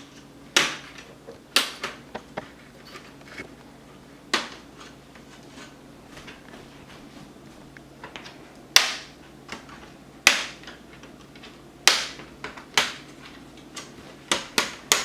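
Plastic clips of a laptop's screen bezel snapping loose as the bezel is pried off: sharp, irregular clicks and pops, one at a time, with a few seconds between some of them.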